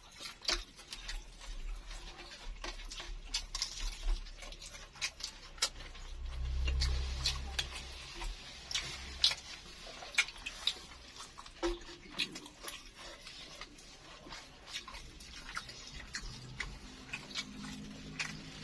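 Close-up eating sounds: irregular crunches and wet mouth clicks while chewing a crispy-edged egg martabak filled with rice vermicelli. A low rumble swells about six seconds in and fades two seconds later.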